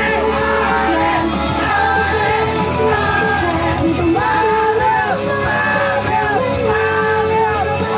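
Idol-pop song with several young women singing the melody into handheld microphones over a backing track, played loud through a stage PA in a large mall hall.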